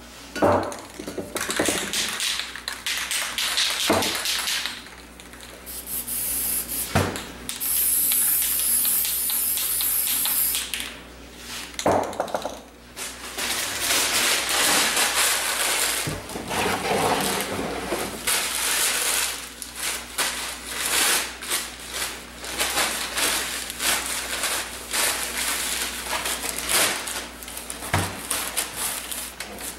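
Aerosol spray paint cans hissing in bursts of several seconds with short breaks, and a few sharp knocks in between.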